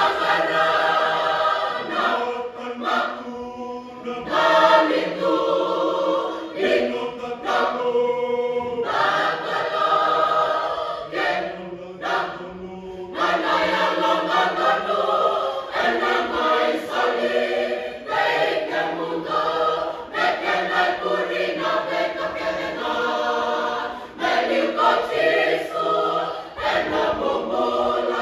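Fijian church choir singing a hymn unaccompanied in several parts, in phrases with short breaks for breath.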